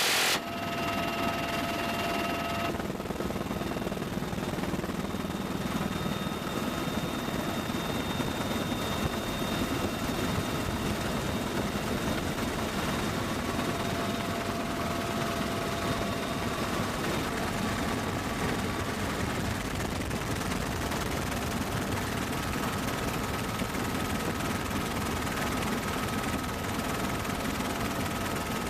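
Helicopter running steadily, a continuous rushing noise with faint steady whines. A louder burst cuts off just as it begins.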